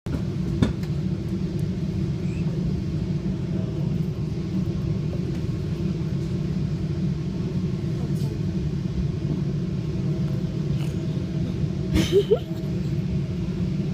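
A steady low rumble, with a couple of short rising sounds about twelve seconds in.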